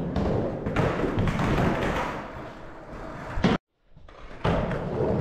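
Skateboard wheels rolling over a plywood floor, with a sharp clack of the board about three and a half seconds in. The sound cuts out abruptly right after, then the rolling picks up again near the end.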